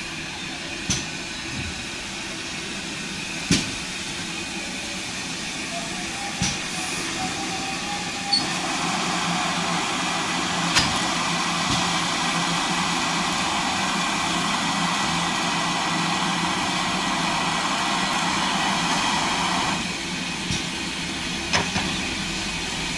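GWR steam locomotive moving slowly tender-first past the platform, hissing steam, with the hiss louder from about a third of the way in until near the end. A few sharp clicks or clanks come several seconds apart.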